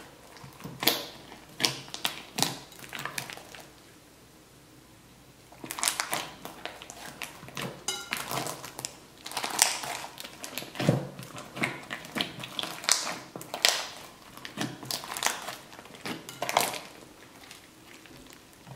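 Fluffy slime filled with plastic vase-filler beads being squeezed and stretched by hand in a glass bowl: wet squishing with sharp air-bubble pops and clicks in irregular clusters. The popping pauses briefly about four seconds in, then comes thick and fast.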